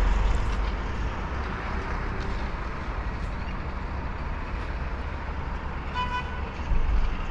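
Steady hum of town traffic, with one short car horn toot about six seconds in.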